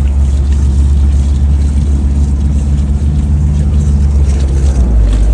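Suzuki Samurai-type 4x4's engine running through extreme off-road terrain, a loud steady low drone.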